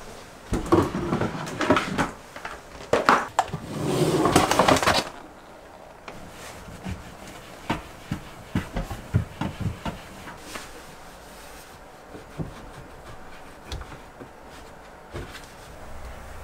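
Bottles, a plastic basket and packets being taken out of a kitchen cabinet and set down on a wooden floor: a loud stretch of rustling and clatter for the first five seconds or so, then scattered light knocks and clinks as items are put down.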